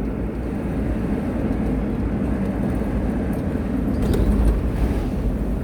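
Car driving on the road, heard from inside the cabin: a steady low rumble of engine and tyre noise, rising a little about four seconds in.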